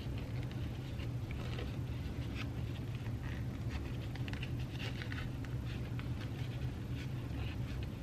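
Hands handling a pink strap connector and the black bag material it is tucked through: soft scratchy rustling and small clicks, coming and going, over a steady low hum.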